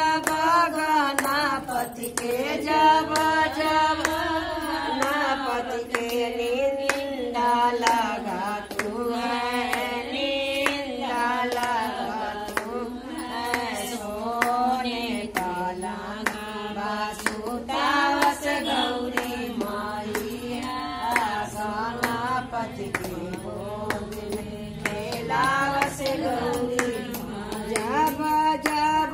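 Group of women singing a Hindi devotional bhajan together, with steady hand-clapping keeping the beat.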